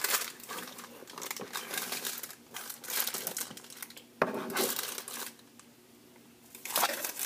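Parchment paper crinkling while a kitchen knife cuts and scrapes brownies in a parchment-lined metal baking pan, in irregular rustling bursts with a sharper clatter about four seconds in.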